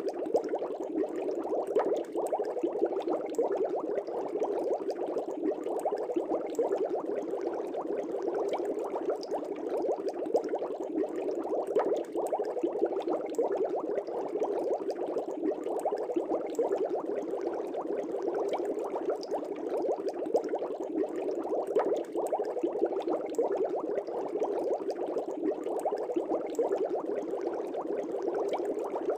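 Air bubbles streaming up through an aquarium and bubbling at the surface: a steady, dense stream of small pops and gurgles that does not change.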